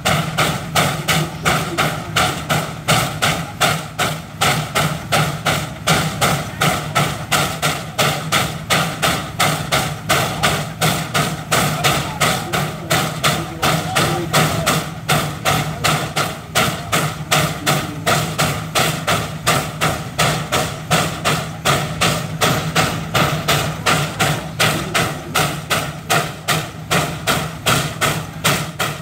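McLaren steam roller's exhaust beating in an even rhythm of roughly two and a half sharp chuffs a second as it works under load, hauling a tractor-pulling sled. A steady low drone runs underneath.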